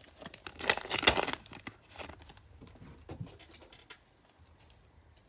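A trading card pack wrapper being torn open and crinkled by hand, loudest in the first two seconds, then fading to light rustling and near quiet.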